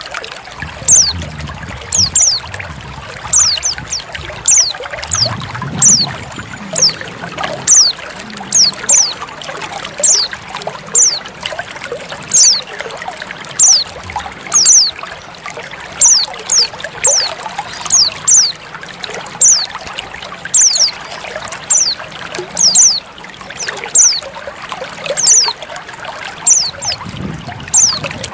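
Female white-eye (pleci) giving short, high, downward-sliding call notes over and over, often in quick pairs, about one or two a second. Under them runs a steady trickle of splashing water.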